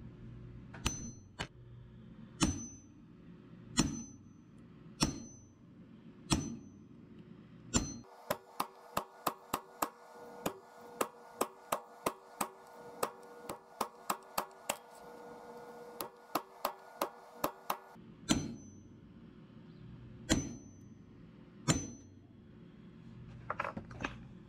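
A hammer tapping a steel center punch to dot vein marks into a thin sheet-metal leaf on a wooden bench, each tap a sharp metallic tick. The taps come singly about a second or so apart, then in a quick run of about two a second from about 8 s to 18 s with a faint ring under them, then spaced out again, with a short flurry near the end.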